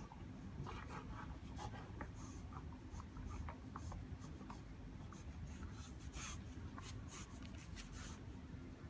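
Irregular scratching, rustling and small clicks as a Rottweiler wriggles on its back on grass and gnaws an old washing-machine part, a ribbed rubber hose with a plastic fitting. The scratches come thickest in the second half.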